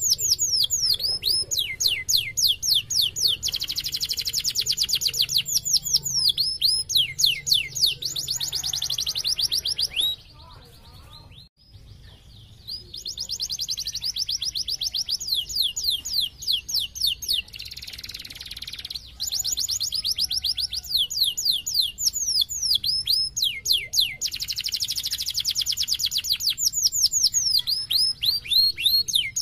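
Domestic canary singing a long, fast song of rapid trills and runs of repeated high falling notes. It breaks off for about two seconds a little before halfway, then starts again.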